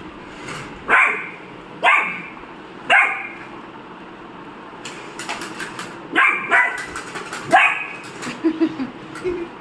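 Dog barking: three sharp barks about a second apart, then after a pause a quicker run of barks.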